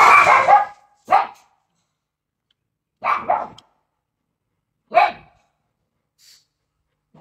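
Dog barking: about five short barks spaced irregularly, the first the loudest and a quick double bark around the middle.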